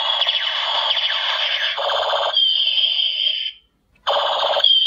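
Battery-powered toy gun's electronic firing sound effect from its small speaker: a harsh, rapid rattle, then a high ringing tone that cuts off. After a short silence it starts again about four seconds in.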